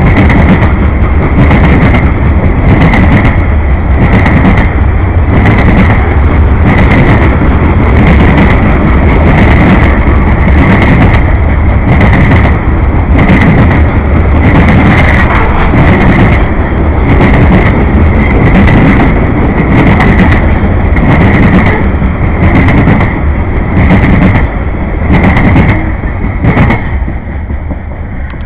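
Freight train rolling past at close range: a steady rumble with the car wheels clacking over the track in an even rhythm, about once a second. The clacks fade near the end as the train draws away.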